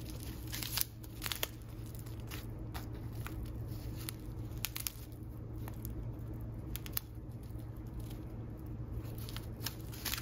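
Clear plastic pouch of loose-leaf tea crinkling as it is handled, in scattered sharp crackles over a steady low hum.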